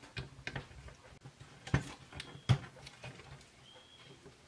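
Light clicks and taps as a laptop's CPU/GPU heat sink is unscrewed and handled on the motherboard, with two louder knocks a little under a second apart about halfway through.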